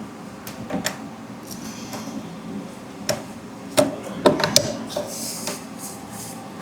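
Hands reinstalling parts on a 3D printer: a series of sharp clicks and knocks of small metal and plastic parts and tools, with a quick cluster of them about two thirds of the way through.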